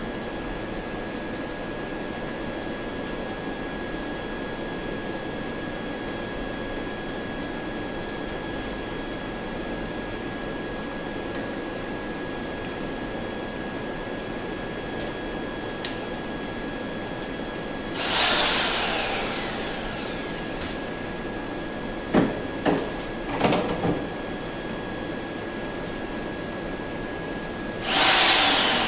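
Handheld electric paddle mixer motor run in short bursts, each whining down in pitch after it is released: one burst about two-thirds of the way in, three quick blips a few seconds later, and a louder start near the end as the paddle goes into a barrel of rum wash to stir the CO2 out of it.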